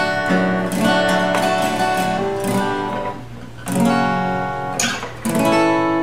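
A Seagull Entourage concert-hall cutaway acoustic guitar is being played. Several chords are strummed and left to ring.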